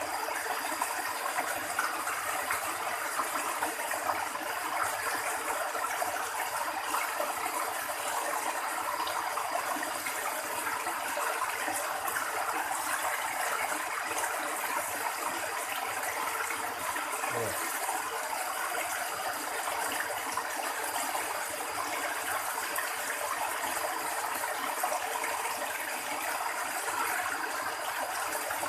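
Steady rushing of flowing water in a narrow channel, with a faint high steady whine above it.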